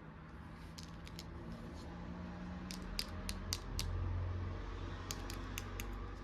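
Three quick runs of light, sharp clicks, five or six in each run, over a low handling rumble that swells in the middle.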